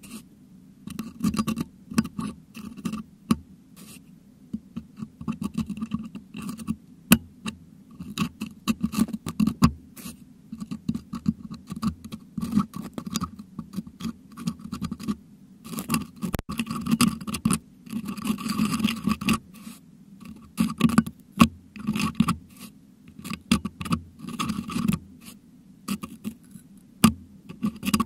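Metal dental hook scraping and picking at a Blue Yeti microphone's grille to dig out crushed meringue, picked up very close by the microphone itself: irregular scratches and sharp clicks, busiest a little past the middle.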